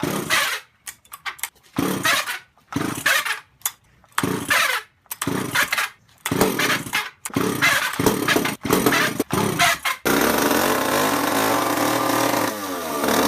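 Two-stroke chainsaw being pull-started: about a dozen short, sputtering pulls on the starter cord before the engine catches about ten seconds in and keeps running, its revs dipping briefly near the end.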